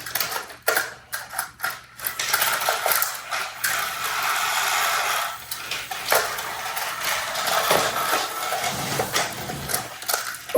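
Plastic toy train and track pieces clicking and rattling, with a steadier mechanical rattle for a few seconds in the middle.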